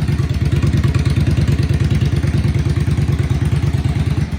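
Yamaha XVS650's air-cooled V-twin running steadily through aftermarket Vance & Hines pipes, with an even, low pulsing exhaust beat.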